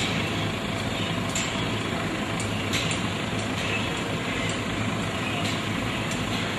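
Steady vehicle and traffic noise with a low engine hum, and a few faint clicks.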